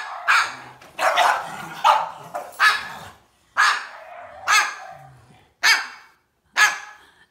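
Cockatoo imitating a dog's bark, about nine barks roughly a second apart.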